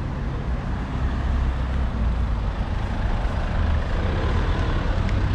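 A car driving: steady low engine and road rumble with no distinct events.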